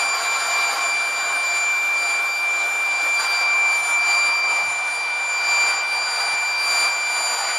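Small mains-powered electric air pump (an airbed inflator) running steadily, blowing a rush of air out of its nozzle with a constant high whine.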